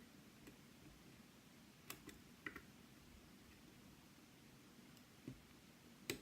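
Faint, sparse clicks of lock picks working the pins of a Yale Superior lock: a pair of light clicks about two seconds in, a short ringing tick just after, a dull tap past five seconds and a sharper click near the end, over near silence.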